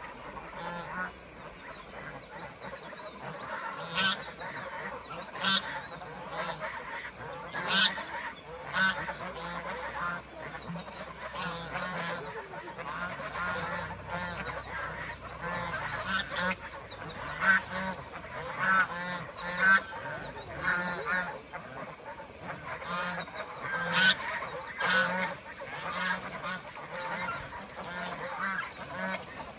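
A flock of domestic geese honking again and again, many calls overlapping, with a few sharper, louder honks standing out here and there.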